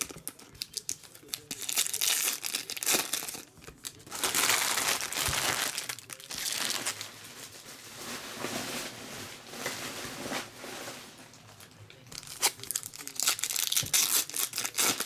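Foil trading-card pack wrappers crinkling and tearing as they are ripped open and handled, in irregular bursts, loudest about four seconds in and again near the end.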